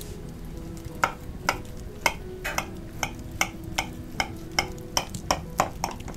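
Metal fork clinking against a glass baking dish as it cuts through a baked casserole: sharp, ringing taps two to three times a second, starting about a second in.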